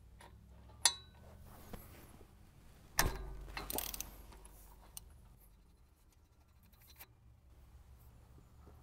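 Ratchet and socket loosening the filling plug on a Kubota M5700's front axle case: a sharp snap about a second in, a louder one about three seconds in followed by a second of ratchet rasping, then a few lighter clicks.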